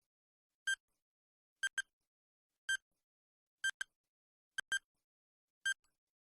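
A series of short, high electronic beeps, one or two at a time, repeating about once a second with dead silence between them.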